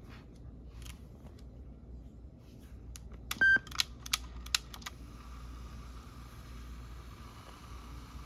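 Sony WM-EX501 Walkman cassette player being operated: a few sharp mechanical clicks and clunks from its buttons and mechanism, the first carrying a brief tone, about three to five seconds in. After that comes a faint steady hiss.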